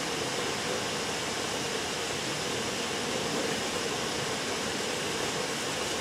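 Steady, even hiss of room ventilation or air conditioning, with no distinct knocks or strokes standing out.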